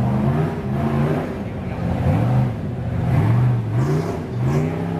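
Off-road rock buggy's engine revving in repeated surges under load as it climbs a steep dirt hill. The pitch rises and falls about once a second.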